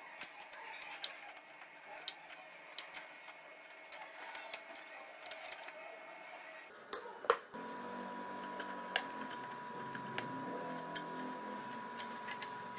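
Light metallic clicks and taps of an open-end wrench working a nut on a welded steel bracket, then two sharp metal knocks about seven seconds in. After the knocks a steady hum with a high tone sets in.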